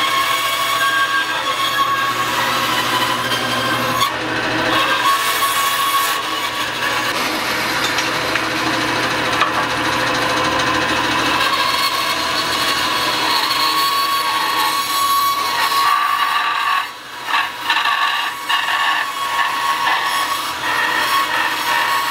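Bandsaw running and cutting through a block of hard maple, a steady sawing sound. From about seventeen seconds in it breaks up into short gaps as the cut is worked in stops and starts.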